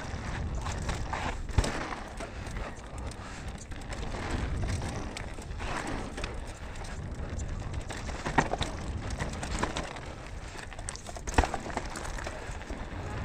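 Mountain bike riding down a dirt trail: a steady rolling rumble from the tyres and bike, with sharp knocks about one and a half seconds in, at about eight and a half seconds, and at about eleven seconds.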